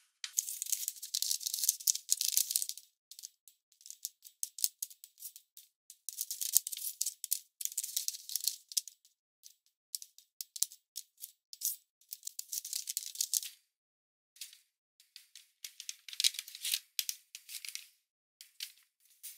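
A square of origami paper being handled, folded and creased by hand: crisp rustling and crackling in bursts of a second or two, broken by short silent gaps.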